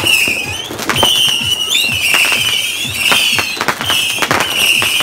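Fireworks going off: a string of high whistles, about one a second, each holding its pitch and rising at the end, mixed with sharp cracks and pops.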